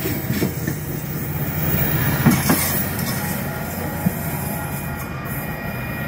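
Caltrain bilevel passenger cars rolling past, their wheels rumbling and clacking over the rails, with a couple of sharp clanks about two seconds in.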